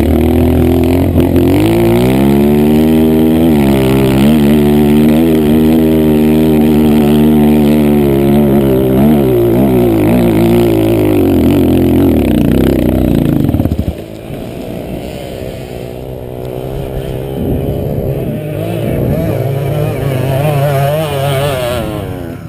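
Dirt bike engine heard from on board, revving hard with its pitch rising and falling through throttle and gear changes. About 14 seconds in it drops sharply in level, then runs on quieter with the revs still rising and falling.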